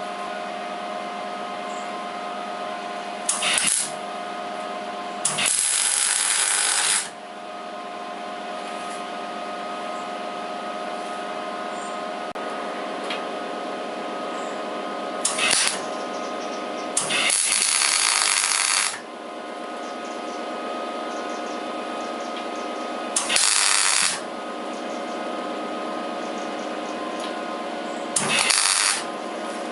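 Electric welder laying tack welds: six short bursts of welding crackle, from half a second to about two seconds long, over a steady machine hum.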